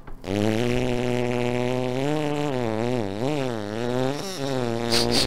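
A long, low, buzzing tone held for about five seconds, steady at first, then wavering up and down in pitch in the middle before settling again.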